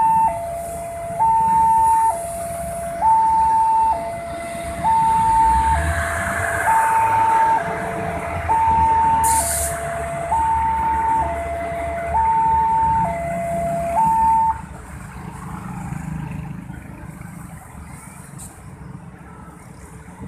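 Railway level-crossing warning alarm sounding a two-tone high-low signal, about one second per tone, while a passenger train rumbles past over the crossing. The alarm stops about 14 seconds in, leaving the train's rumble fading as it moves away.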